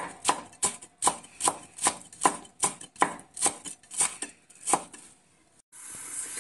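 Kitchen knife chopping on a cutting board in a steady run of about three chops a second, stopping near the end. Soon after, a steady hiss starts abruptly.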